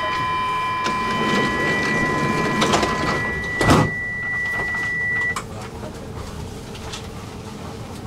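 Metro train door-closing warning: a steady high two-pitch tone sounds, the sliding doors shut with a loud knock nearly four seconds in, and the tone stops about a second and a half later.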